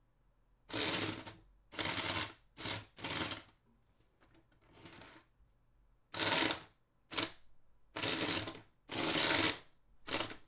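Small DC gear motor driving one side of a 3D-printed tracked tank, running in about ten short bursts of under a second each as the tank pivots. Only one track runs because the other drive motor is damaged.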